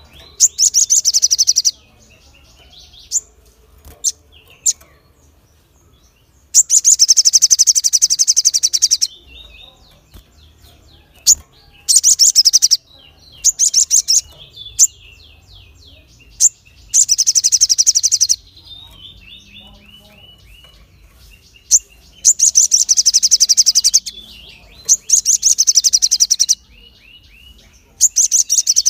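Male olive-backed sunbird singing: loud, rapid, high-pitched trills in repeated bursts of one to two seconds each, with softer chirps between the bursts.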